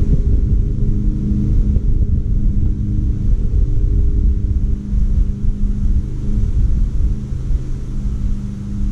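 Lawn mower engine running steadily, a held engine tone over an uneven low rumble, easing slightly in level after about five seconds.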